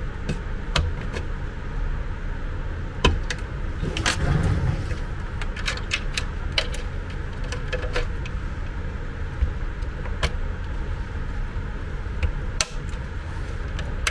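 Irregular sharp plastic clicks and knocks as a switch is worked into the plastic housing of a suction aspirator, with a short scrape about four seconds in, over a steady low background hum.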